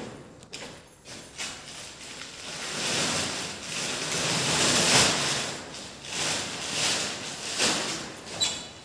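Woven plastic sacks of coal rustling and scraping as they are pulled from a stack and handled. The rustle swells and fades several times, with a few short knocks.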